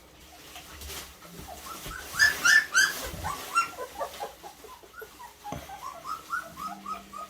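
Two-week-old Labradoodle puppy whimpering and squealing: a run of three or four high cries about two seconds in, then a string of shorter, quieter cries near the end.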